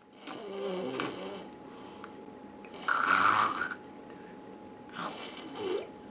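Snoring: three snores about two and a half seconds apart, each lasting about a second, the middle one the loudest.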